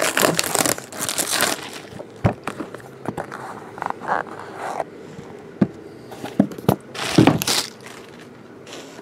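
Plastic shrink wrap crinkling and tearing as it is peeled off a trading-card box, followed by a few sharp taps and knocks as the box lid is opened and the box is handled, with another brief crinkle about seven seconds in.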